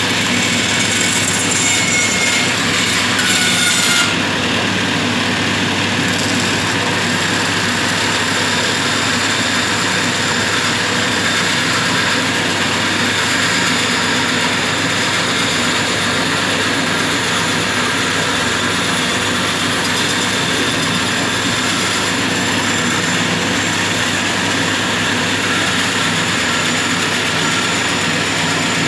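Homemade bandsaw running steadily while its blade cuts a curve through a wooden board. A thin, high squeal in the first few seconds stops about four seconds in, after which the machine noise is slightly quieter and steady.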